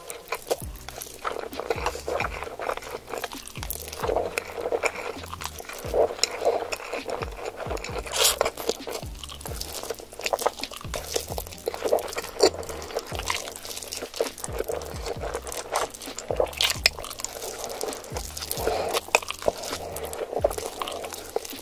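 Close-miked slurping and chewing of a mouthful of spicy instant fire noodles: wet sucking and smacking with many small sharp clicks. Background music plays underneath.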